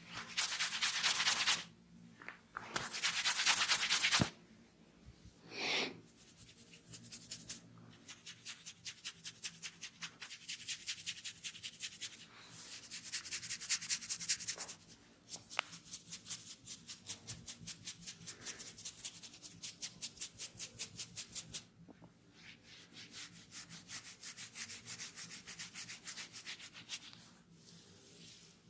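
Hands rubbing and scrubbing through long hair and over the scalp in a head massage: two long rubs in the first few seconds, then fast rhythmic strokes, about four a second, broken by short pauses.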